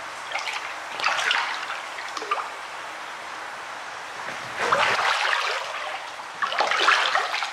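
Water splashing and sloshing in a shallow show tub as hands turn a large koi, in bouts about a second in, near the middle and near the end.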